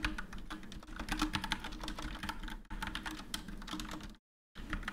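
Computer keyboard typing: a quick, irregular run of key clicks as a line of code is typed. The sound cuts out completely for a moment near the end.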